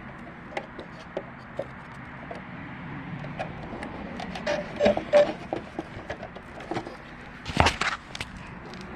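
Scattered plastic clicks and knocks of an RC crawler being handled and switched on, with one louder knock about three-quarters of the way through.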